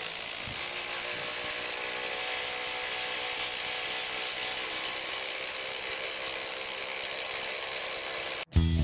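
Bosch IDH182 18 V brushless impact driver hammering steadily under load as it drives a 5/16 by 6 inch lag screw into stacked lumber, cutting off abruptly near the end as the screw seats.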